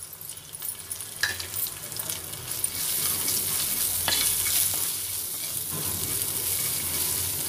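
Grated ginger and ground black pepper sizzling in hot ghee in a pan, stirred with a wooden spatula. The sizzle grows louder about three seconds in, with a couple of spatula scrapes before it.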